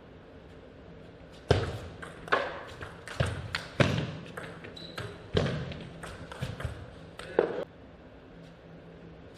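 Table tennis rally: the ball knocking crisply off the players' bats and bouncing on the table, a string of sharp clicks that starts about a second and a half in and stops near the end when the point is won.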